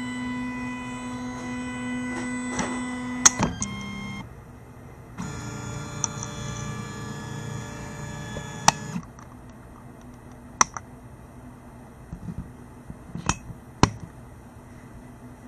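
Motor-driven lead-screw carriage running, a steady electric whine made of several tones. It cuts out about four seconds in, starts again about a second later and stops for good around nine seconds. Sharp clicks are scattered through, with a few more near the end.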